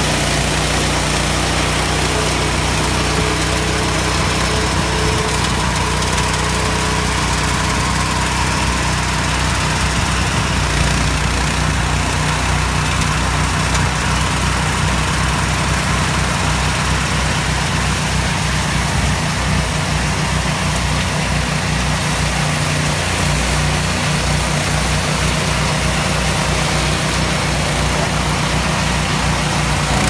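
Small single-cylinder engine of a 4LZ-0.3 walk-behind rice harvester running steadily under load as the machine cuts standing rice.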